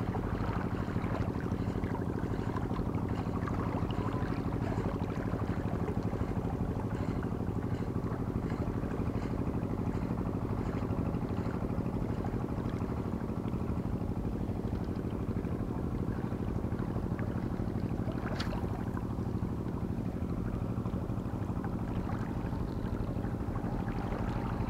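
Steady low engine drone of a boat running, unchanging throughout, with faint scattered ticks and one sharper click about eighteen seconds in.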